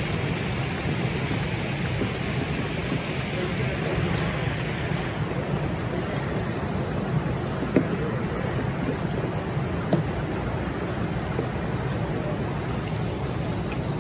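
Steady rush of fast-flowing, churning water, with two short sharp clicks near the middle.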